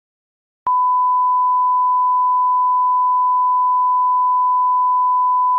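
Steady electronic test tone: a single unwavering high beep that starts abruptly just under a second in.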